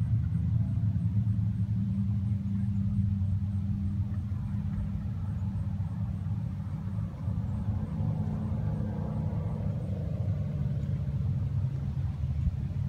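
Vehicle engine running at a steady low pitch, with a fainter, higher engine note coming and going about eight to ten seconds in.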